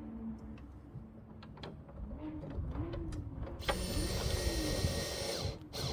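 Cordless drill driving a stainless steel screw to fasten a hook. The motor speeds up and slows several times, then runs steadily at full speed for about two seconds and stops shortly before the end, followed by a few sharp clicks.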